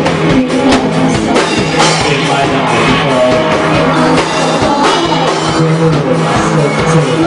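A rock band playing live, with a drum kit keeping a steady beat under guitar.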